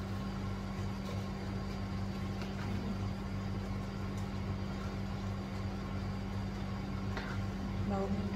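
A steady low hum, with a few light scrapes of a spatula stirring in a frying pan.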